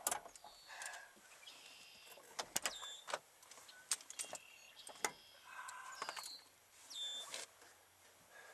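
Camera handling noise: a string of sharp clicks and knocks while the camera is moved about and set down, with a few short high squeaky chirps between them.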